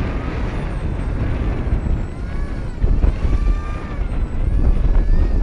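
Wind buffeting the microphone in a strong low rumble, with a faint wavering whine around the middle.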